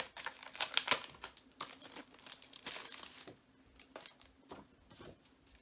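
Clear plastic packaging crinkling and rustling as it is opened by hand. It is busy with crackles for about three seconds, then drops to a few scattered, quieter crackles.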